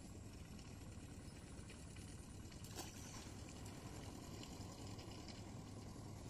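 A small fish being hauled out of the river on a hand rod and line: a brief splash about three seconds in as it leaves the water, over a faint steady low rumble.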